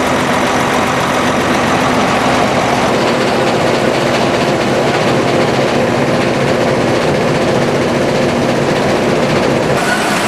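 Haybuster IG-11 tub grinder running steadily, its engine and machinery making a loud, even mechanical din. The deepest part of the rumble eases about three seconds in.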